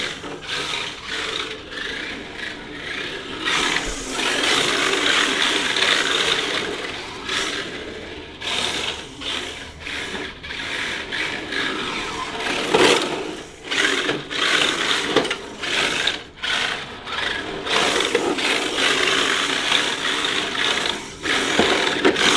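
Electric RC drift car driving on a smooth concrete floor. Its motor and gears whir in repeated bursts that rise and cut off sharply as the throttle is worked.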